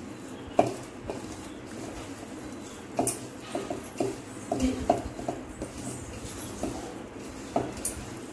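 Soya chunks (meal maker) being mixed by hand in masala marinade in a stainless steel bowl: soft squishing with irregular light clicks and knocks against the steel bowl.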